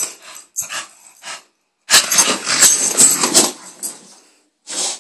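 Bulldog in excited play, making dog noises in several noisy bursts, the longest from about two to four seconds in, while it digs at and tosses rustling bedding.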